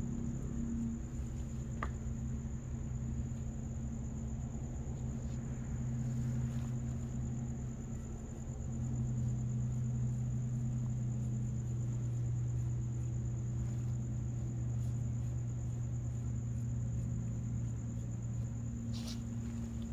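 Crickets trilling steadily on one high note over a steady low hum, with a brief rustle near the end.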